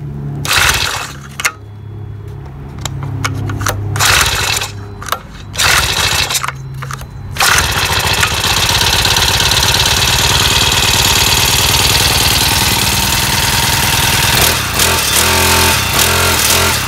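Honda GX31 four-stroke engine on a mini tiller being pull-started: several short pulls, then it catches about seven and a half seconds in and runs fast and steady, easing off to a lower, uneven running near the end. The owner says it needs a little adjustment.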